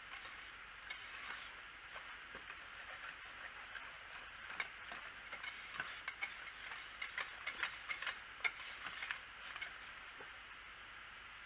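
A metal whisk stirring thick soap paste in a slow cooker's ceramic crock, with irregular clicks and taps against the pot. The taps come thickest from about four seconds in until near the end.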